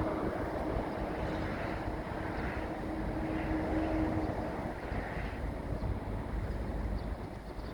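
Steady rumble of wind on the microphone at the seaside, with a faint steady hum that fades out a little past halfway.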